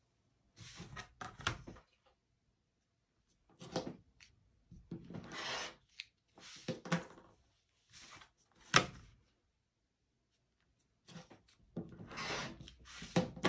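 Rotary cutter blade rolling through layered, sewn fabric strip sets against an acrylic ruler on a cutting mat, in several short cutting strokes with pauses between, as the ruler and fabric are shifted. A few sharp clicks come in between, the loudest just before nine seconds in.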